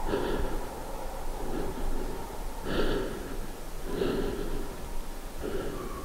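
A person's heavy breathing, one breath about every second and a half.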